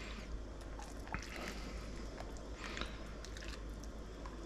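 Faint splashing of broth being ladled from a pot into a bowl, with light scattered clicks of the steel ladle against the pot and bowl.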